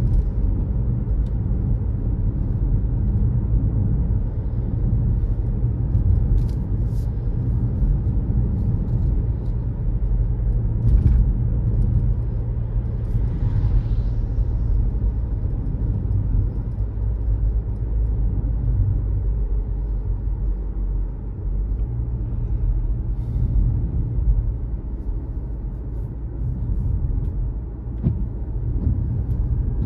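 A car driving along a road: the steady low rumble of engine and tyres, with a few faint clicks.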